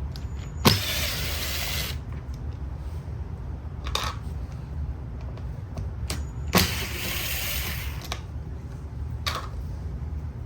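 Two sharp mechanical clicks about six seconds apart, each followed by roughly a second of rasping, scraping noise, with a few lighter clicks between, over a steady low hum.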